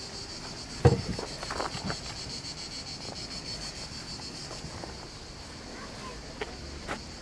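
A steady, high, finely pulsing chorus of cicadas buzzing. Over it there is a sharp knock about a second in, the loudest sound, then a few lighter knocks and two small clicks near the end.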